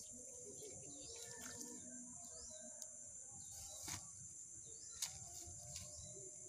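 Faint outdoor ambience: a steady high insect drone with a few faint bird chirps, and two sharp clicks about four and five seconds in.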